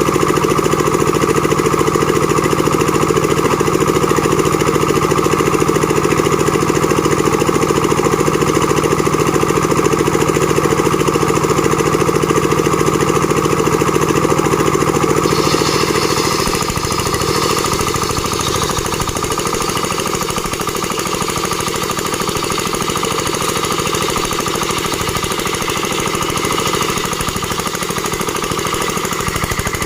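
Engine-driven plank-making machine running loudly and without a break. About halfway through the sound changes: the low steady engine tone drops away and a harsher, higher noise takes over.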